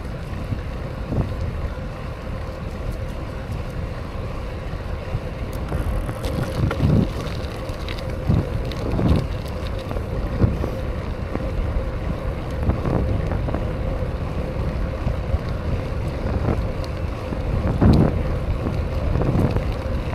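Wind rushing over the microphone of a camera riding along on a moving BMX bike: a steady low rumble with a few brief stronger gusts.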